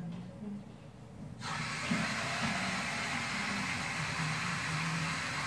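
Kitchen tap running into a container: a steady, even hiss that starts abruptly about a second and a half in.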